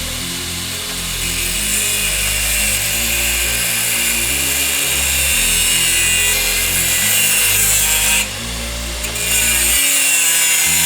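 A power tool cutting into the stock CBR650R muffler's metal, a steady harsh cutting noise that eases briefly about eight seconds in, over background music.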